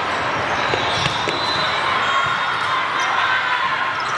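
Busy echoing hall during volleyball play: a steady hubbub of many voices with the thuds of balls being struck and bouncing, and a couple of sharp ball hits about a second in.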